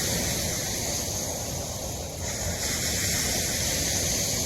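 Steady wash of storm noise: surf breaking on the beach mixed with wind and rain.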